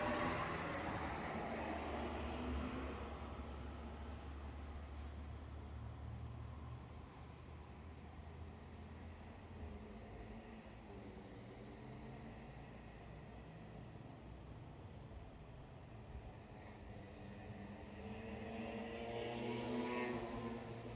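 Crickets chirping steadily in a fast pulsing trill, over faint distant road traffic: a vehicle fades away in the first few seconds, and another rises and passes near the end. A low rumble runs under the first half.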